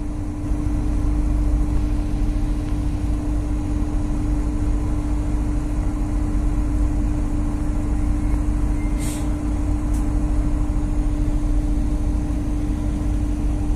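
Tugboat diesel engine running steadily, heard on board as a low, even rumble with a constant hum. Two short clicks sound about two-thirds of the way through.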